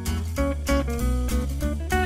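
Background music: plucked guitar over a bass line with a steady beat.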